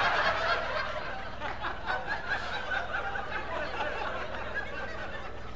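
Audience laughing, loudest at the start and slowly dying down.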